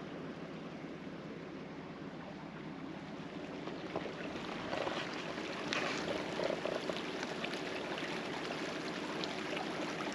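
Small shallow creek trickling and babbling over gravel and logs, a steady water sound that grows a little louder and busier about four seconds in.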